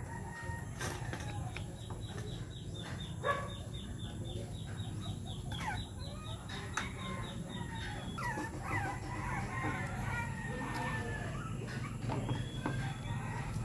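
Background animal calls, a rapid run of high chirps and then a stretch of rising and falling calls, over a low steady hum; a few sharp clicks come from the plastic cassette shell being handled and pried apart, the loudest about three seconds in.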